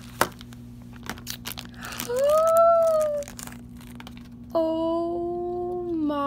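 Thin plastic bag crinkling with a few light clicks as a small plastic toy figure is unwrapped and set on a table, then a girl's long drawn-out cooing voice, first a short rising-and-falling 'ooh' and then a longer held note that sinks slightly in pitch, over a steady low electrical hum.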